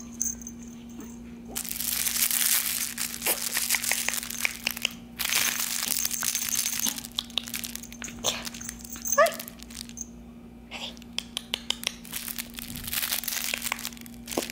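Rustling and crinkling in long stretches, thick with small clicks, as a young Shih Tzu puppy scrabbles and plays on a fluffy rug, with a brief high squeak about nine seconds in.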